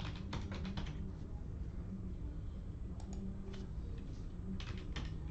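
Typing on a computer keyboard in short bursts of key clicks, over a steady low hum.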